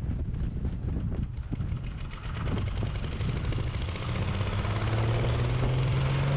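Wood chipper's small petrol engine running. In the second half it speeds up, its pitch rising steadily and the sound getting louder.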